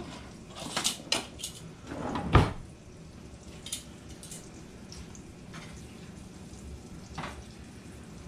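Kitchen utensils clinking and knocking: metal tongs and dishes handled at the stove and counter, a cluster of sharp clinks in the first few seconds, the loudest about two and a half seconds in, then a few scattered taps.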